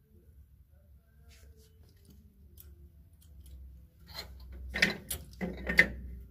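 Clothes hangers clicking and clacking on a shop's wall display rail as garments are hung up. Faint scattered ticks at first, then a quick run of louder clacks over the last two seconds.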